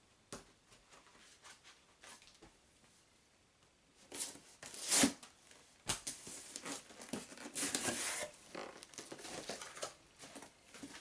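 Cardboard box being torn open: a few seconds of quiet handling, then from about four seconds in loud tearing and crinkling with a couple of sharp snaps, going on as rustling while the flaps are pulled back.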